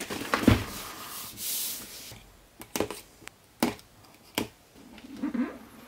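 Cardboard box being handled: a thump about half a second in, a short sliding scrape, then several sharp taps and clicks and a low rustle as fingers work at the edge of the box lid.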